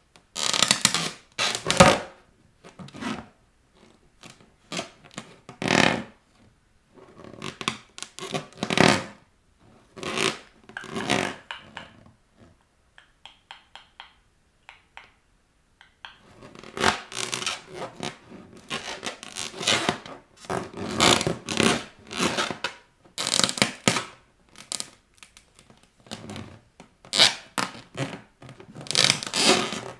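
Latex balloons pressed and rubbed under bare feet, scraping and squeaking in irregular bursts with short pauses, mostly quiet for a few seconds midway.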